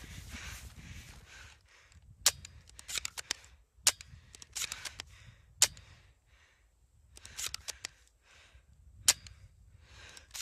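Airsoft gun shots: four sharp cracks, about two, four, five and a half and nine seconds in, with quieter clusters of clicks between them. Dry grass rustles at the start.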